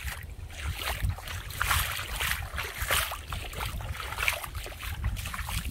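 Feet wading and splashing through a shallow sandy stream, in irregular steps, over wind rumbling on the microphone.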